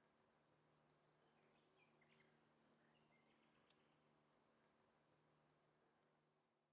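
Near silence, with only a very faint, steady, high-pitched chirr and a low hum.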